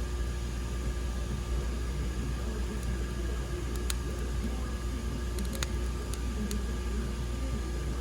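Steady low machine hum with a hiss of noise over it, and a few light clicks about halfway through.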